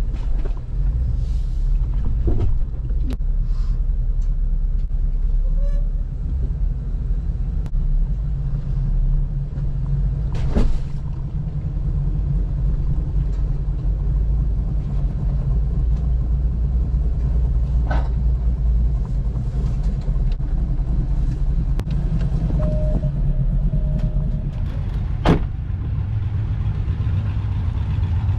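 Stock Jeep Rubicon engine running low and steady while crawling over rocky trail, with a few sharp knocks now and then.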